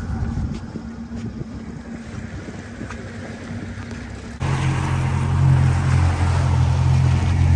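Motorboat engine running steadily with wind and water rushing past. About four seconds in, the sound jumps abruptly to a louder, steady low engine drone.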